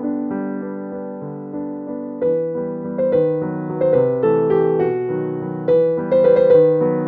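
Background piano music, single notes and chords struck one after another and fading.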